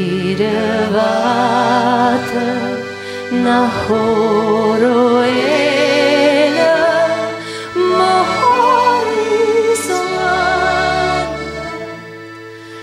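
Music: a slow song with a wavering, vibrato melody line, most likely a singing voice, over held accompaniment chords.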